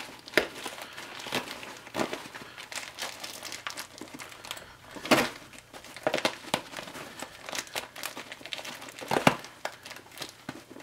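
Nylon fabric of a stuffed camouflage MOLLE II medical pouch and the packed supplies inside it rustling and crinkling as the pouch is squeezed and pulled closed, with irregular sharp clicks and scrapes.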